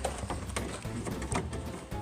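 A few sharp clicks and knocks, about four in two seconds, from the plastic clip and latch parts inside a Ford E-350 van door being worked into place by hand.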